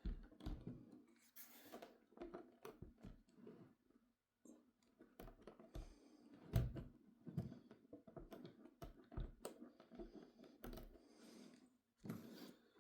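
Faint, irregular small clicks and knocks of hands handling a model locomotive and setting it on the track.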